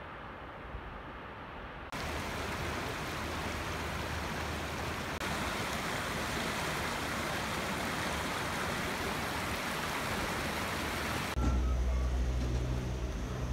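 Rushing water of a mountain stream, a steady hiss. About eleven seconds in it gives way to the louder, steady low hum of a gondola lift's station machinery.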